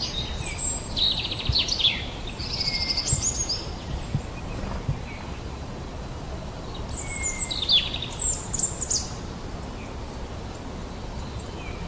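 Small birds chirping in clusters of short, high-pitched notes, near the start, about three seconds in and again about seven to nine seconds in, over a steady low rumble of background noise.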